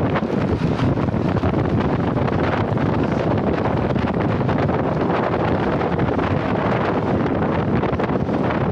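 Wind rushing over the microphone of a camera riding on a track bike at racing speed, a steady loud rush that does not let up.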